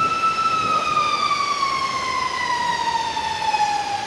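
A siren holding one steady high tone, then slowly winding down in pitch from about half a second in, over a steady hiss of rain.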